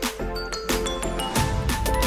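Background music with a steady beat; a heavier bass line comes in about three quarters of the way through.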